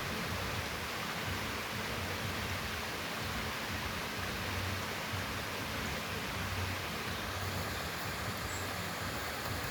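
Steady, unbroken rush of falling water from a forest waterfall, with a low rumble beneath it.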